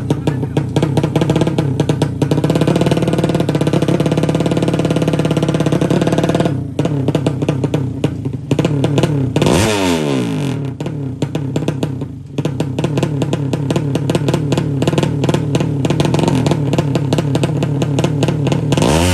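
A 200 cc drag-bike engine revved high and held at the start line, with brief drops in revs; about halfway its pitch dips sharply and climbs back. Near the end there is a loud burst as the bike pulls away.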